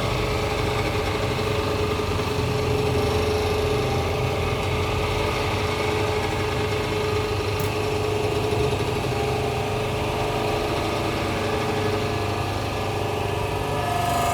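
Hydraulic hose crimping machine's pump motor running with a steady hum; a higher steady tone joins near the end.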